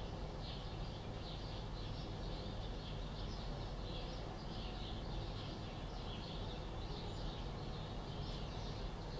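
Chicks peeping continuously: many short, high peeps in quick succession, over a steady low hum.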